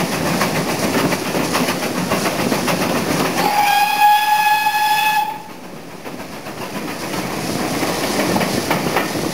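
Carriage wheels rumbling and clattering on the rails through a brick tunnel behind steam locomotive Foremarke Hall. Partway through, the locomotive's steam whistle sounds one steady note for about two seconds. The running noise then drops away suddenly and builds again toward the end.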